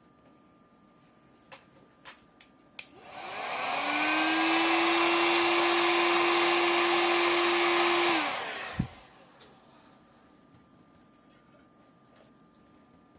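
A few light clicks, then a small electric motor spins up with a rising hum and a rushing-air hiss. It runs steadily for about five seconds, then winds down and stops, followed by a single knock.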